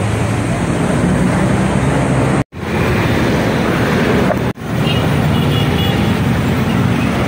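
Wind buffeting the microphone over a steady wash of city traffic noise. The sound cuts out for an instant twice, about two and a half and four and a half seconds in, and a few short high peeps are heard soon after the second cut.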